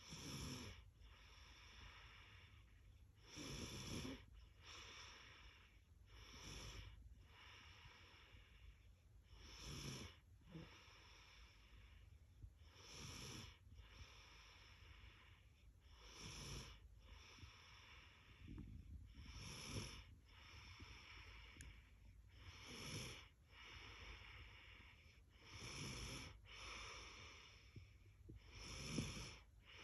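A little girl snoring faintly in her sleep, one snoring breath about every three seconds in a steady rhythm.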